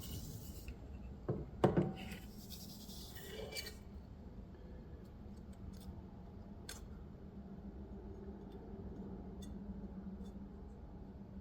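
Hand work on an outboard motor's lower unit: small metal parts knocking and scraping as they are handled and slid into place, with two sharp knocks about a second and a half in, then a few light clicks. A steady low hum sits underneath.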